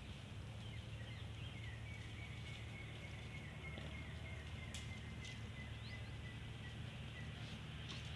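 Outdoor field ambience: a steady low rumble with a faint, high, evenly pulsing chirp that runs for several seconds, slowly dropping in pitch, and a few sharp clicks.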